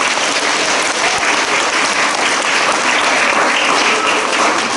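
An audience of schoolchildren applauding, with dense, steady clapping.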